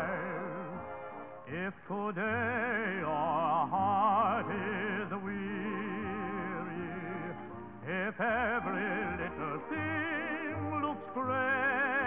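Music: a song with a singing voice carrying a strong, wavering vibrato over instrumental accompaniment.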